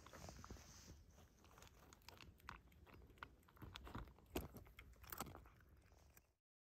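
A cat chewing dry kibble from a plastic bowl: a run of irregular crisp crunches, most pronounced a little past the middle. The sound cuts out abruptly near the end.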